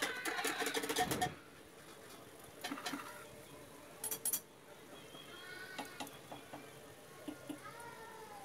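A metal spatula scraping and knocking against the inside of an aluminium pressure cooker while thick gourd curry is stirred, dense for about the first second, then only a few scattered clicks.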